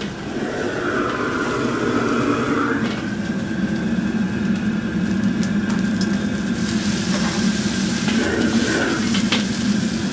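Commercial gas wok burner running at full blast under a carbon-steel wok, a steady rushing noise, with a few sharp clinks of a metal ladle against the wok.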